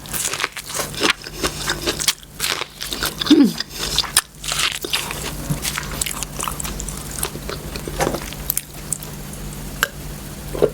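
Close-miked eating: biting and chewing food, with irregular crunches and wet clicks of the mouth.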